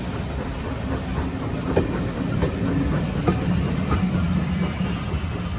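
Train running on the rails: a steady low rumble with sharp wheel clicks and knocks at uneven intervals.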